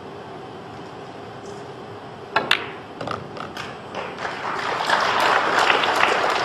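A cue striking a pool ball with a sharp click a little over two seconds in, followed at once by a second ball-on-ball click and a few lighter knocks of balls rolling into each other and the cushions. An audience's applause then builds and swells.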